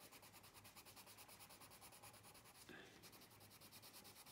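Faint scratching of a coloured pencil shading back and forth on smooth colouring-book paper, in quick, even strokes.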